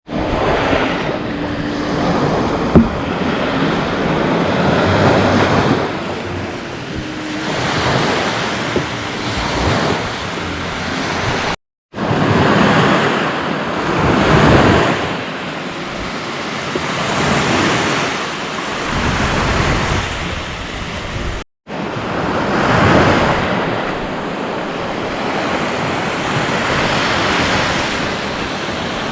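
Lake waves washing onto the shore, swelling and easing every few seconds, with wind buffeting the microphone. A single sharp click sounds about three seconds in, and the sound cuts out briefly twice.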